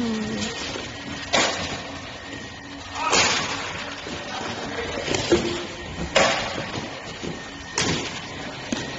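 Badminton shots against a shuttlecock feeding machine: five sharp smacks of shuttlecocks being struck, spaced irregularly about one and a half seconds apart.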